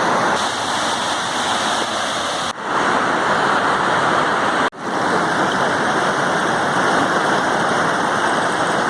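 Waterfall rushing, a loud steady roar of falling water that cuts out abruptly for an instant twice.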